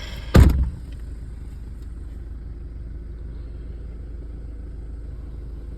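Steady low rumble of a car driving slowly over a rough, muddy dirt track, heard from inside. About half a second in there is one loud, brief sound that falls steeply in pitch.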